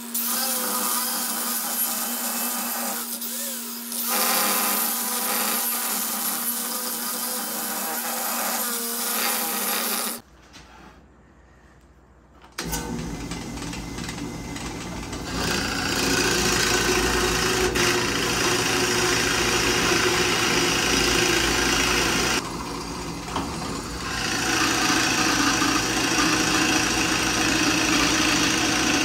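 Angle grinder with a wood-carving disc running and cutting into a walnut slab, a steady whine. After a short quieter gap, a drill press bores into the walnut with a Forstner bit, its motor steady and the cutting louder at times.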